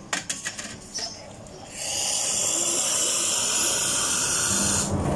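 A few light clinks of glassware, then the espresso machine's steam wand opened, releasing steam with a loud, steady hiss for about three seconds before it is shut off suddenly.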